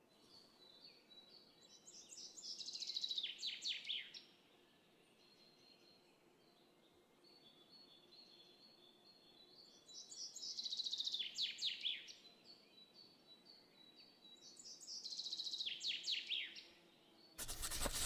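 A small songbird sings the same short phrase three times, each a couple of seconds of quick notes sweeping downward, over faint background noise. A brief burst of noise comes near the end.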